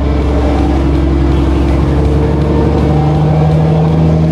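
A fishing boat's engine running steadily with a strong low hum.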